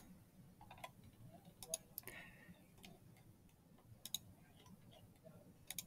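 Near silence with a few faint clicks of a computer mouse, some in quick pairs.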